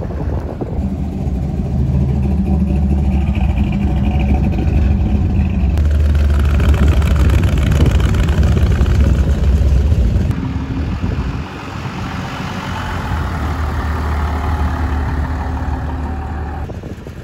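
Engines of classic vehicles driving slowly past one after another, in three sections that change abruptly: a vintage saloon, then a flame-painted hot rod with an open engine, the loudest, in the middle, then an old four-wheel-drive pickup near the end.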